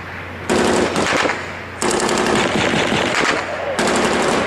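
Bursts of automatic machine-gun fire in a firefight: three long bursts, back to back, starting about half a second in.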